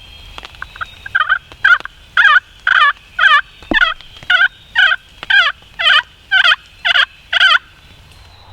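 A long series of turkey yelps: about fourteen loud, evenly spaced notes, roughly two a second, starting about a second in and stopping shortly before the end, each note breaking from a higher to a lower pitch.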